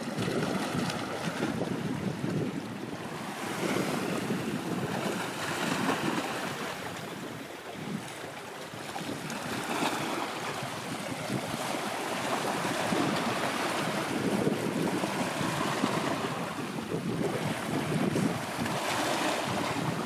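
Wind gusting across the microphone over the steady wash of waves, rising and falling in surges.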